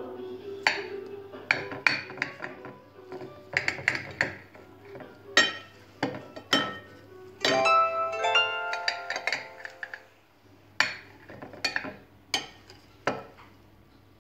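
A utensil knocking and clinking against a glass dish while cutting through a baked potato omelette: irregular sharp clinks, some ringing briefly, thinning out after about ten seconds.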